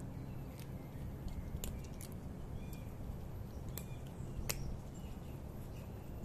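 A cat crunching dry kibble: a handful of sharp crunches at irregular intervals, the loudest about four and a half seconds in, over a low steady background rumble.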